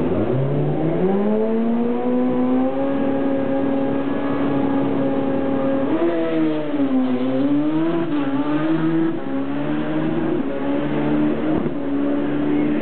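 Drag-racing snowmobile engine revving up on the starting line: its pitch climbs over the first couple of seconds and is then held steady, dipping and wavering for a few seconds in the middle before settling again.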